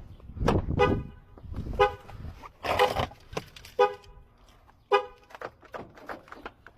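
Car horn sounding in five short honks about once a second, the pattern of a car alarm set off when the door is opened after the lock is picked. A few clicks and knocks fall between the honks.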